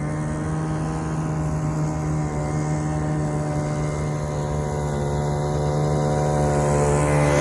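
Small engine of a homemade propane-powered RC boat running steadily at speed, a constant pitched drone that grows louder near the end.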